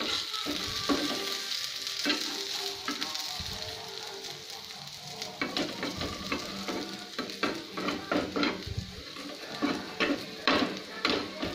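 Rice-flour-coated potato and banana pieces sizzling in oil on a flat frying pan, with a spatula scraping and knocking against the pan as the pieces are turned. The scrapes come thick and fast in the second half.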